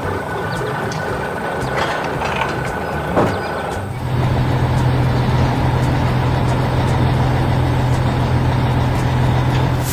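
Heavy construction-vehicle engine sound effect: a noisy mechanical rumble that turns into a louder, steady low hum about four seconds in, then stops at the end.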